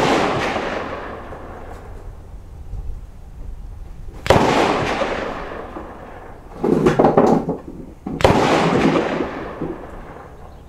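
Mossberg 640K bolt-action .22 Magnum rifle fired three times: the echo of one shot fades as it begins, then a sharp crack about four seconds in and another about eight seconds in, each with a long rolling echo. A fourth shot lands right at the end.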